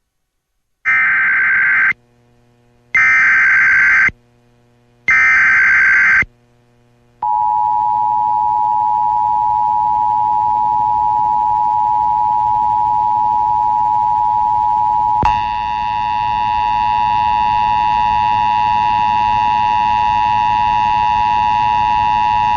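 Emergency Alert System broadcast tones: three one-second bursts of SAME digital header data about a second apart, then the steady two-tone EAS attention signal. About halfway through the attention signal it turns harsher, with many added overtones.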